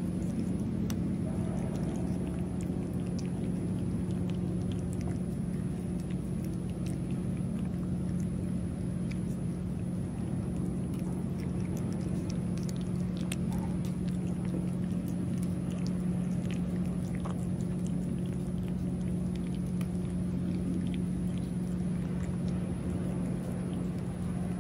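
A cat eating wet food from a steel bowl: faint, scattered small clicks of chewing and licking. Under them runs a steady low hum, the loudest thing heard, with a constant high-pitched whine above.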